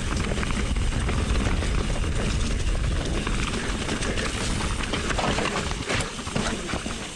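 Mountain bike riding over rough trail: a heavy low rush of wind buffeting the action-camera microphone, with the bike clattering and rattling over the ground and a sharper knock about six seconds in.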